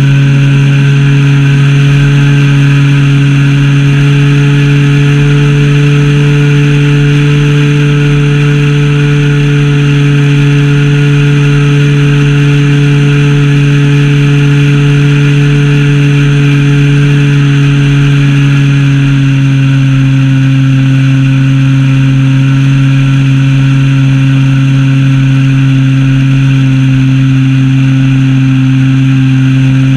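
Zenoah ZP 20 two-stroke gasoline engine of a large RC model plane running steadily at flying speed, heard from a camera mounted on the airframe, so the engine is loud and close. About two-thirds of the way through the pitch drops slightly and stays lower, as the throttle is eased back.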